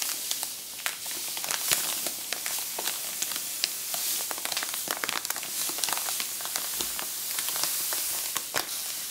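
Granulated sugar poured in a steady stream onto a heap of minced apple in a bowl: a continuous hiss of falling grains with many small crackles.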